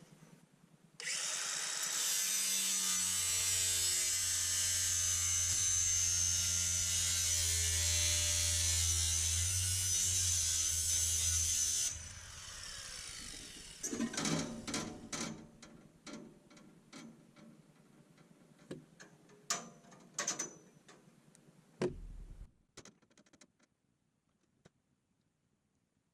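A power tool runs steadily for about eleven seconds, cutting through the jammed, tensioned sawmill bandsaw blade to free it. After it stops come a scatter of sharp clicks and knocks.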